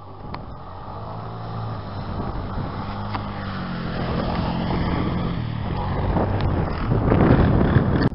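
A motor vehicle's engine running with a steady hum that grows louder towards the end, mixed with wind noise on the microphone.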